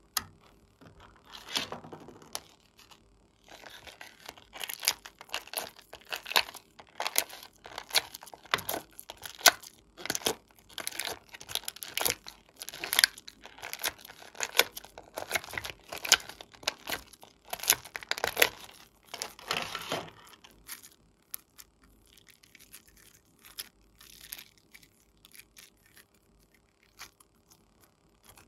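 Thin clear plastic tray crackling and snapping under the fingers as it is pressed to push slime out of its cups, in quick irregular bursts of crinkles and clicks. The sound grows much quieter after about two-thirds of the way through.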